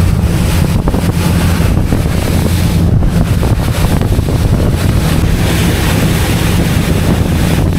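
Strong wind buffeting the microphone: a loud, steady rumble with a hiss over it.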